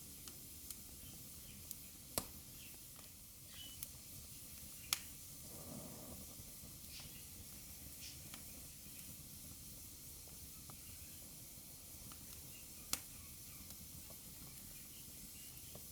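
Wood fire burning in a fireplace: a low steady hiss with scattered small crackles and three sharper pops, about two seconds in, five seconds in and near the end, plus a brief soft hissing swell around six seconds.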